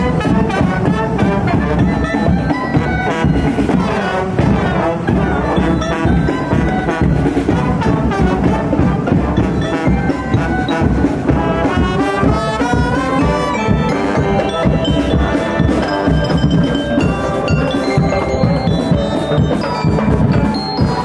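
Marching brass band playing live: trombones, trumpets, sousaphone and clarinet carry the tune over snare drums, large painted drums and a mallet-struck bar instrument, with a steady beat.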